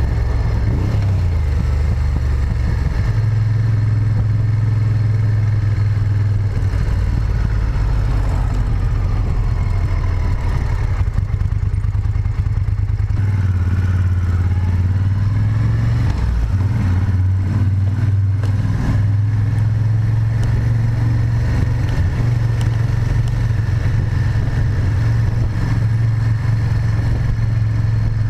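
Moto Guzzi Griso 8V SE's transverse V-twin engine running under way at low speed. The engine note holds steady for stretches and shifts in pitch several times as the throttle and gears change.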